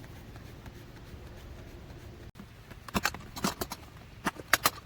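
Low steady background, then a quick series of sharp clicks and knocks in the second half: small objects handled and set down.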